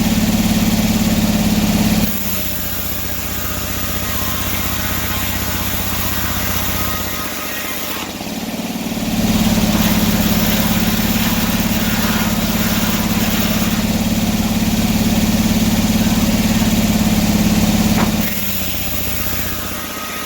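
Antique sawmill's engine and machinery running steadily. The sound drops about two seconds in, comes back up after about nine seconds and drops again near the end.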